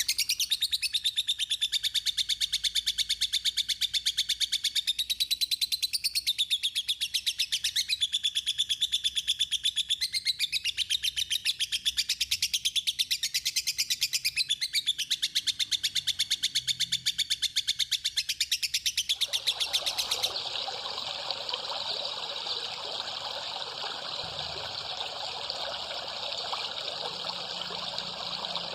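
A songbird singing a fast, continuous run of high chirps and gliding whistles. About twenty seconds in it cuts abruptly to trickling water with a steady high hiss.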